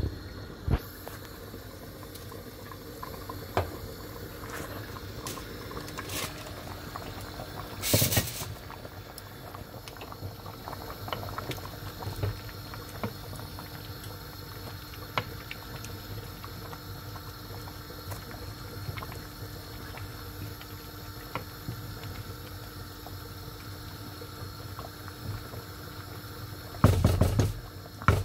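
Rice, potato and chickpea pilau bubbling at a boil in a pot, with scattered knocks. A cluster of louder knocks near the end as it is stirred with a wooden spoon.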